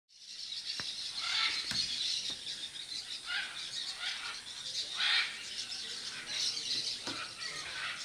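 A flock of macaws and parrots calling, many overlapping calls with some sweeping downward, fading in at the start.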